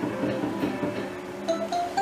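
Electronic music of a Merkur 'Safe Choice' slot machine while its reels spin, a run of short synthesized notes, with a few higher stepped beeps about one and a half seconds in as the reels come to a stop.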